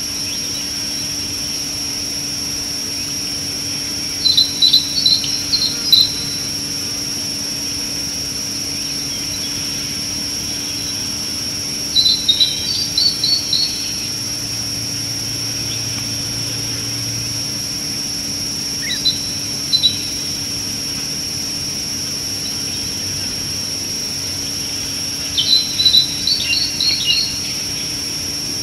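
A steady, high-pitched drone of insects in dry bush, with a bird singing short bursts of rapid chirps four times, each burst a second or two long.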